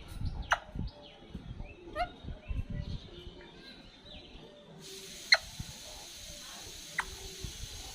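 Pet parrot giving a few short, sharp calls, the loudest about five seconds in, over low rumbling noise.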